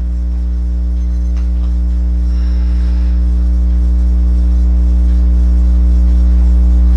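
Steady low electrical mains hum with a buzz of higher steady tones stacked above it, growing slightly louder.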